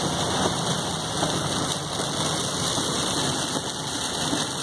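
Steady rain hitting the windshield and roof of a moving Ford Explorer, heard inside the cabin, mixed with the hiss of tyres on the wet highway.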